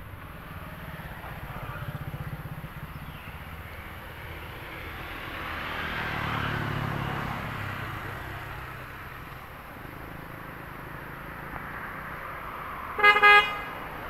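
Road traffic: a vehicle passes with a swelling and fading engine and tyre sound about halfway through, and a vehicle horn gives a short, loud honk near the end.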